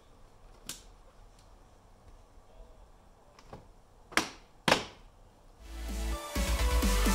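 Plastic clips of a BMW F30 kidney grille snapping into the bumper as it is pressed home: a faint click, then two loud sharp snaps half a second apart. Electronic music with a rising sweep fades in near the end.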